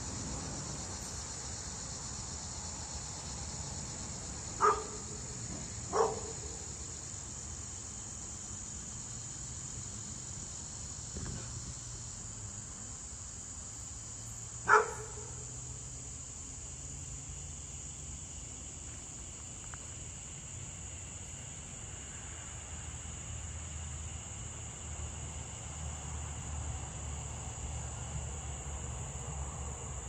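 Crickets chirping in a steady, high-pitched chorus, with a dog barking three times: two barks a little over a second apart about five seconds in, and one more about halfway through.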